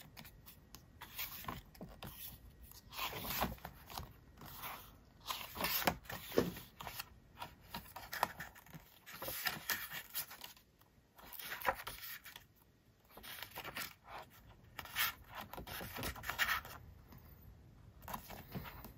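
Glossy pages of a photobook being turned and smoothed by hand, paper sliding and rustling in short irregular strokes, with a quieter stretch about halfway through.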